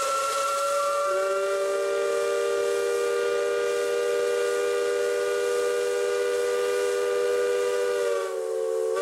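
A river steamboat's steam whistle blows one long blast over a hiss of escaping steam. It sounds a chord of several notes, with lower notes joining about a second in, and the pitch sags slightly just before the whistle cuts off suddenly at the end.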